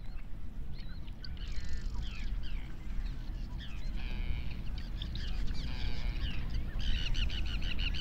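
A flock of birds calling: many short, high calls overlapping, growing busier, with a fast run of repeated calls about seven seconds in. Under the calls is a steady low rumble.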